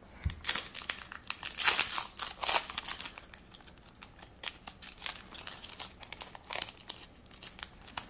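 Foil wrapper of a Yu-Gi-Oh! Tactical Masters booster pack crinkling and tearing as it is opened by hand, loudest about two seconds in, then softer rustling with another burst near the end.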